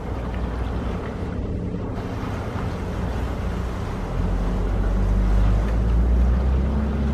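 Steady low machine hum with a rumbling noise over it, growing louder about four seconds in.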